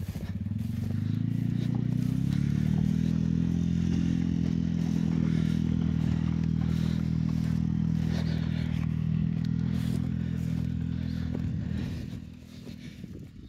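A vehicle engine picks up from a low idle, rising in pitch over the first second or so, then runs steadily under way before easing off near the end.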